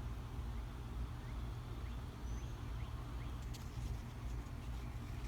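Outdoor background: a steady low rumble with a few short, high bird chirps and faint ticks over it.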